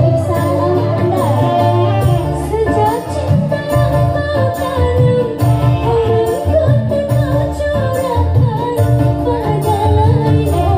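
Live dangdut band: a woman sings the melody into a microphone over keyboard, mandolin and a steady drum beat.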